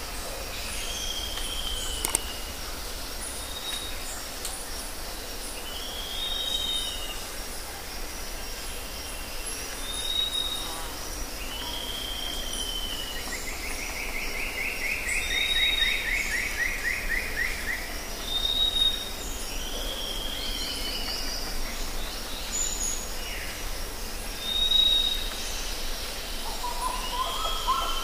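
Birds calling over a steady outdoor hiss: a short arched whistled note repeats every few seconds, with high thin chips between. About halfway through there is a longer buzzy trill.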